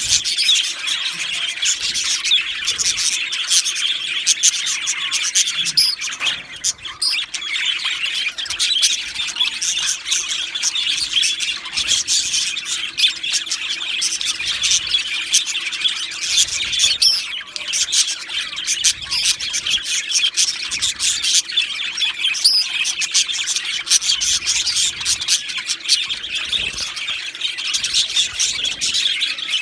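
Male budgerigars (budgies) chirping and chattering continuously, a dense stream of rapid high-pitched notes with no pauses.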